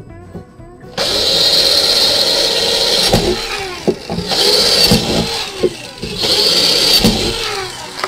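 Handheld power drill drilling holes into a panel: three runs of the motor at full speed with a steady high whine, each winding down with a falling pitch when the trigger is let go.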